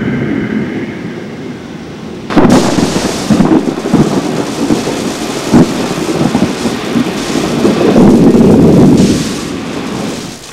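Thunder: a sudden loud crack about two seconds in, then rolling rumbles broken by sharper cracks, swelling again near the end before dying away.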